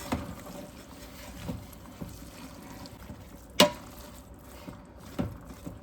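Ground meat and vegetables being stirred in a pot, a soft wet churning, with a sharp knock about three and a half seconds in and a smaller one near the end.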